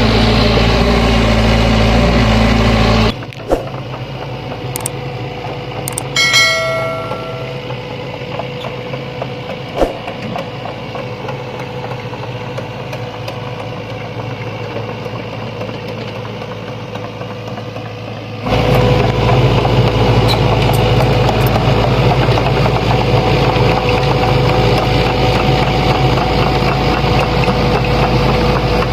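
Sany hydraulic excavator's diesel engine running loud and steady under working load. About three seconds in it drops suddenly to a quieter run, and it comes back up to full working level after about fifteen seconds. A brief bell-like metallic ring sounds about six seconds in.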